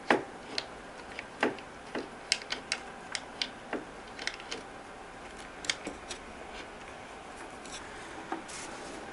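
Irregular small clicks and knocks of a digital piano stand's wooden panels and metal fittings being handled and fitted together, denser at first and thinning out after about six seconds.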